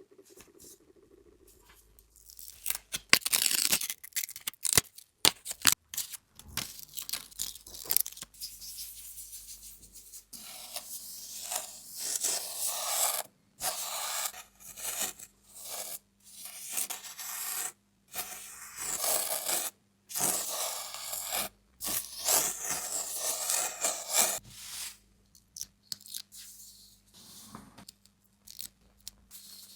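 Sand being spread, scraped and rubbed by hand across a flat surface, in irregular hissing strokes with short gaps. There are a few sharp taps in the first few seconds.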